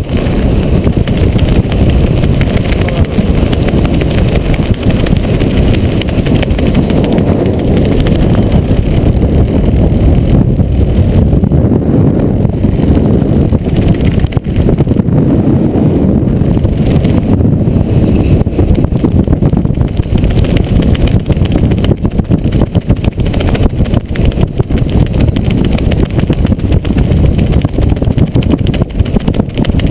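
Loud, steady rumble of wind on a helmet camera's microphone, from the airflow of a skydiver's descent under an open parachute canopy.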